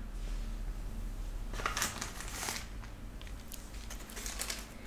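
Soft crinkling and rustling of product packaging handled close to the microphone, in a cluster of short bursts about two seconds in and a few fainter ones near the end.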